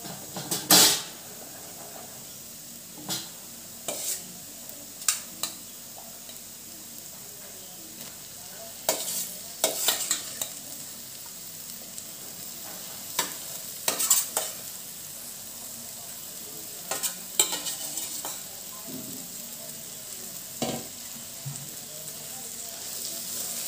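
A steel spoon scraping and knocking against a coated kadai at irregular intervals as cooked small prawns are added to a spiced onion masala, over a faint steady sizzle of frying.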